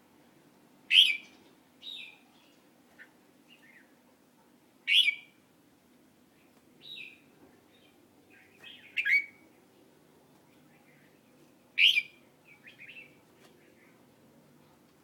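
A bird calling in short, sharp chirps: four loud calls spaced about three to four seconds apart, each followed by a few softer chirps.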